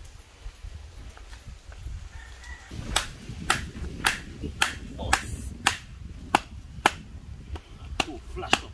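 Knife chopping on a cutting board: sharp, even strikes about two a second, starting about three seconds in, over a low rumble.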